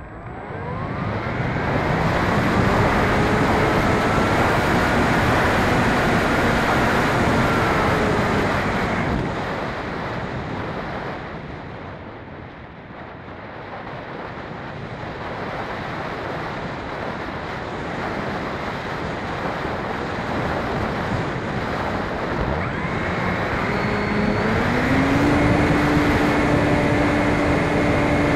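Onboard sound of a Phoenix 2400 RC motor glider: the electric motor and propeller run up with a whine and run for several seconds, then cut about nine seconds in, leaving only air rushing past the glider. About 24 seconds in the motor starts again, its whine rising and then holding steady.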